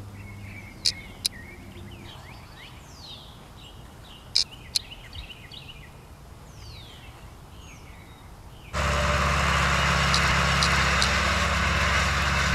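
Faint outdoor background with birds chirping, broken twice by a pair of small sharp clicks from the Seek thermal camera. About nine seconds in, it cuts to a loud, steady mechanical hum with a low drone and a few faint ticks.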